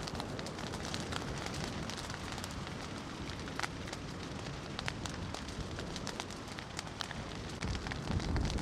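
Steady crackling with many scattered sharp snaps and pops, as from a fire burning at the site of an exploded fireworks factory. A low rumble rises near the end.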